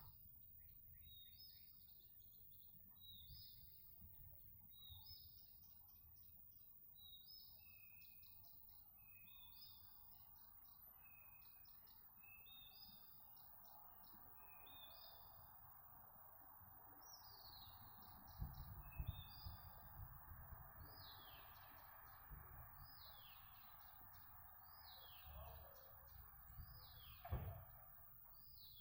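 A songbird singing a long run of short, high, varied phrases, about one a second, many of them sweeping downward. A steady background noise rises underneath about a third of the way in, with a few low thumps later on.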